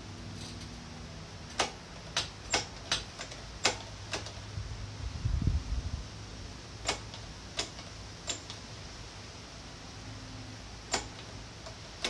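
Irregular sharp clicks and light knocks of tools and parts being handled at a motorcycle's rear brake caliper, several in quick succession early on and a few more spaced out later, with one dull thump about five and a half seconds in, over a low steady hum.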